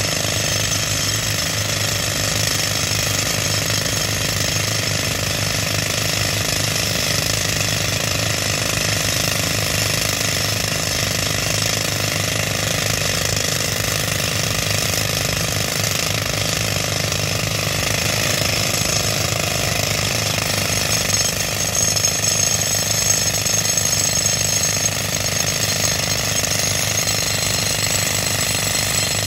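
Pneumatic rock drill hammering steadily into hard rock, its air fed by a tractor-driven air compressor: a loud, continuous rapid rattle.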